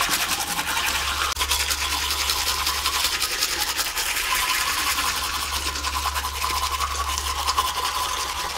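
A toothbrush scrubbing rapidly against teeth, a fast, continuous brushing rasp with no pause.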